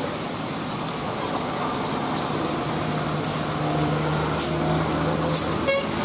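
A large coach's diesel engine running as it climbs past, growing louder about halfway through as it draws near. Under it is the steady hiss of heavy rain and tyres on a wet road.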